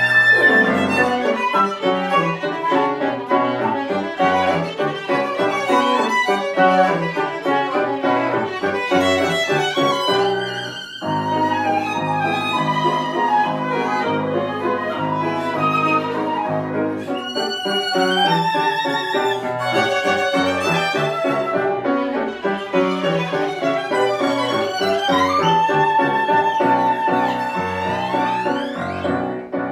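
Tango played live by a trio of violin, piano and flute, the violin carrying the melody over the piano. The music breaks off for a moment about eleven seconds in, and a long held note sounds near the end.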